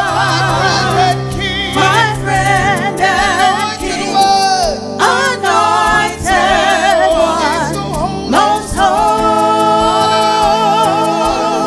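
Live gospel worship song: a woman leads on a handheld microphone, her voice wavering with heavy vibrato, with choir voices and instrumental accompaniment holding steady low notes beneath.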